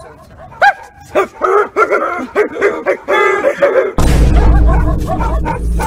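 A dog barking and yelping repeatedly in quick, short calls. About four seconds in, loud bass-heavy music takes over.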